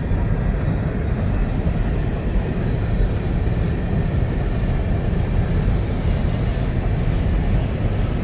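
Empty coke cars of a freight train rolling past, a steady loud rumble.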